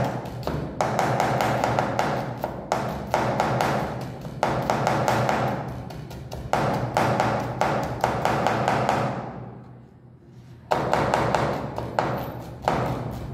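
Chef's knife rapidly chopping onion on a wooden cutting board, several quick taps a second. The chopping pauses briefly about nine and a half seconds in, then resumes.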